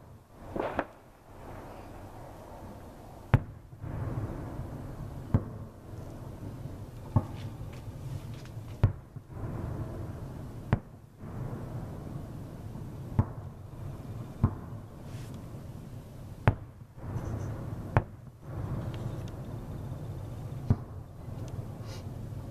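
Aerial firework shells bursting at a distance: about ten sharp bangs, one every one to three seconds, each followed by a low rolling echo.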